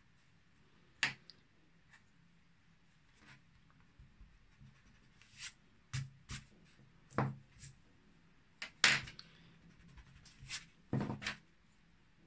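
Pencil and eraser working on rough cotton watercolour paper: short, irregular scratching and rubbing strokes, the loudest about nine seconds in and a quick cluster near the end.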